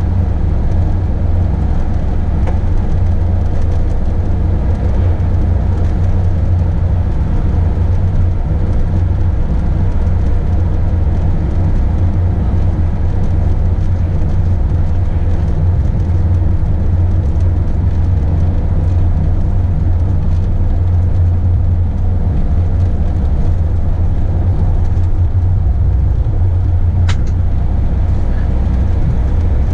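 Steady low road-and-engine rumble of a motorhome on the move, heard from inside the vehicle. A single short click near the end.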